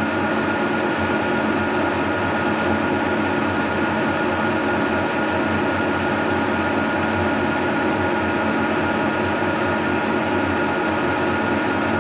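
A 1940s Brown & Sharpe horizontal milling machine running smoothly through its gears and chain drive, its vertical head turning a Wohlhaupter boring and facing head at about 250 rpm during a light facing cut. It is a steady whir with several constant whining tones and no change in speed.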